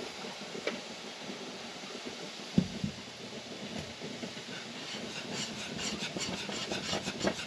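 A pot of strawberry rhubarb jam at a hard boil, with a low grumble of thick bubbling as it spits hot liquid. There is a single knock about two and a half seconds in. From about five seconds in, quick regular strokes of a whisk stirring through the boiling jam join the bubbling.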